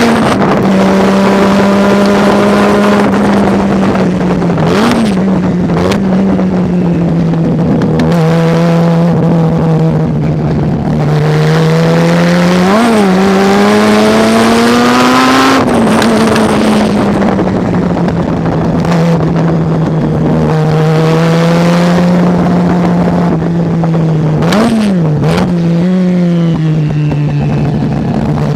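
Mazda RX-7 rotary engine running hard at race pace. Its note mostly holds steady with slow rises in pitch, broken by quick up-and-down throttle blips about five, thirteen, nineteen and twenty-five seconds in. The pitch drops sharply just after fifteen seconds and climbs again under acceleration near the end.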